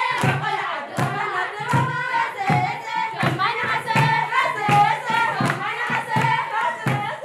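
Group of girls and young women singing an Ashenda song together over a drum beaten in a steady beat, about four strokes every three seconds.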